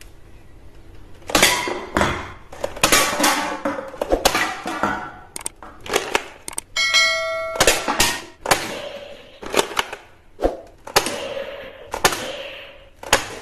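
Toy foam-dart blaster firing shot after shot: a dozen or so sharp clacks and knocks at irregular spacing as darts strike drink cans and foam blocks. About seven seconds in there is a short bell-like ding.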